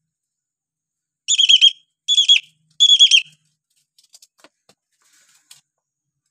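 Hill myna giving three loud, shrill whistled calls in quick succession, each about half a second long with a wavering pitch, followed by a few faint ticks.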